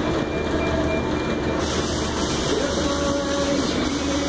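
MIG welding arc hissing and crackling as a bead is run. The arc starts about a second and a half in and stops near the end, over a steady low shop hum.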